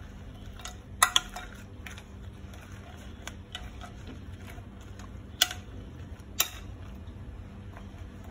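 Metal spoon clinking against a glass dish while stirring cookie pieces into ice cream base. There is a quick double clink about a second in and two single clinks later, over a steady low hum.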